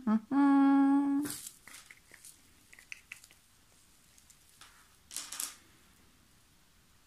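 A woman hums a short syllable and then one held note for about a second. A brief rustle follows, then a few faint clicks, and a louder brief rustle about five seconds in.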